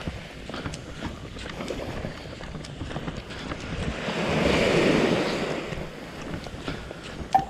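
Small waves breaking and washing up onto a sandy beach, with a wash that swells about halfway through, and wind buffeting the microphone.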